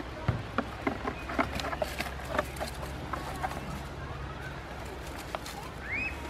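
Goats' hooves clattering on a hard surface: an irregular run of clicks and knocks that thins out after about three and a half seconds. A short rising squeak comes near the end.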